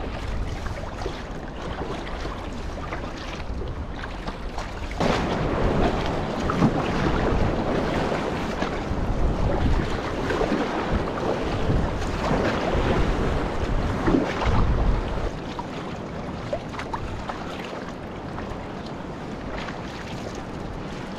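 Sea water splashing and lapping around a kayak as it is paddled, with wind on the microphone. The water grows louder about five seconds in and eases off again about ten seconds later.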